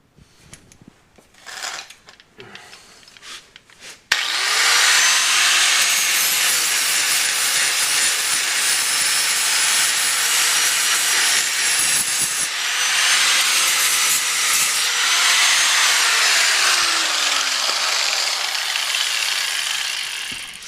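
Angle grinder cleaning rusted frame steel. It starts suddenly about four seconds in and runs steadily with a high whine, stops briefly midway, then winds down with a falling pitch near the end. Faint knocks come before it starts.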